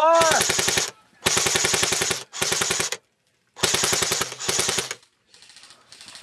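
Airsoft rifle firing five rapid full-auto bursts of covering fire, each under a second long, separated by brief pauses. A short shout at the very start.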